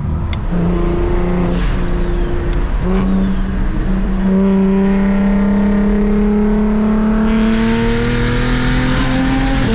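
Single-turbo N54 straight-six of a BMW 335is, straight-piped, pulling under throttle. Its note breaks a few times early on, then holds one long pull that rises slowly in pitch. A thin high whistle climbs alongside it from about halfway through.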